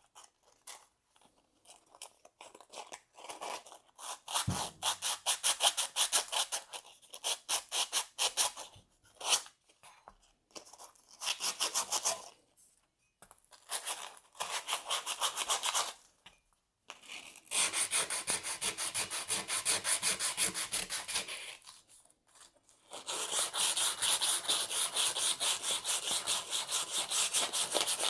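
Sandpaper rubbing over the rusty metal of a Polaris Axys snowmobile exhaust, in quick back-and-forth strokes. The strokes come in several bouts broken by short pauses.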